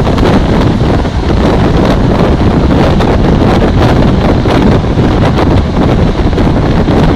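Strong wind buffeting the microphone held out of the window of a fast-moving passenger train, with the running noise of the train on the track underneath. The level stays loud and even throughout.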